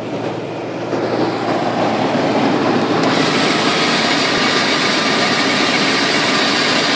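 Runva 11XP electric winch running, its motor and gear train giving a steady mechanical whirr as it hauls in synthetic rope under load. It gets louder about a second in and brighter about three seconds in.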